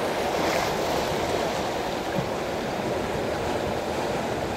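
Steady rush of sea waves washing, an even noise with no distinct strokes.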